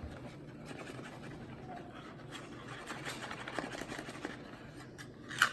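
Soft scratching and rustling of self-rising flour being scraped and poured from a measuring cup back into its container, with one sharp clink of the cup near the end.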